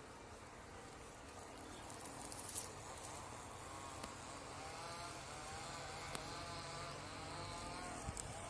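A flying insect such as a bee or fly buzzing, faint at first and then plainer, its pitch wavering up and down as it moves about.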